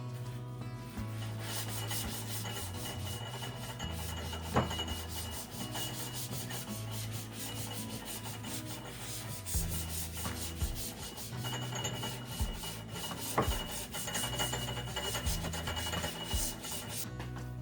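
Scrubbing: a cloth, sponge or brush rubbed back and forth over a hard surface in quick, even strokes, with a couple of sharper knocks. It starts about a second in and stops shortly before the end.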